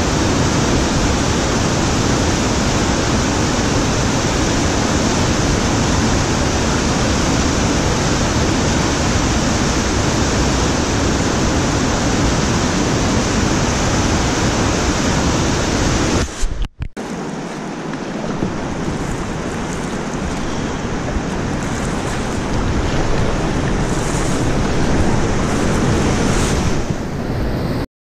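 Large whitewater rapid: a steady, loud rush of water. Just past halfway it drops out for an instant and comes back a little quieter, then stops abruptly near the end.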